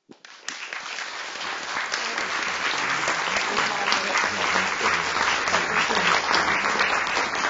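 Conference audience applauding at the end of a lecture: a dense, steady patter of many hands clapping that begins just after the start and builds over the first second or two.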